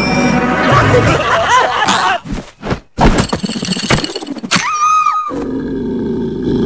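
Cartoon sound effects and wordless character grunts. There are short gaps after about two seconds, then a brief whistling tone that rises and falls about five seconds in, followed by a steady low growl.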